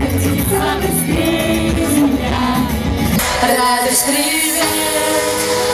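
Live pop music: women singing into microphones over a pop accompaniment, with the bass dropping away about three seconds in.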